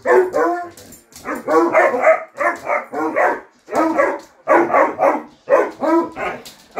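Basset hounds barking in play, a rapid run of pitched, baying barks at about two a second.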